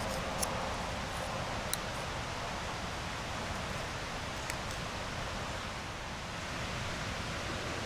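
Steady outdoor background noise, an even hiss, with a few faint light clicks: one about half a second in, one near two seconds and one about four and a half seconds in.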